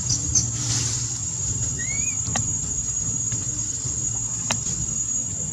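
Outdoor ambience: a steady high-pitched insect drone over a low rumble, with one short rising chirp about two seconds in and a couple of sharp clicks.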